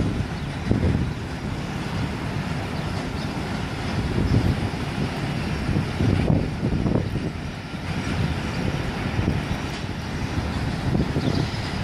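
Low, uneven rumble of distant port machinery and traffic, swelling and dipping every second or so.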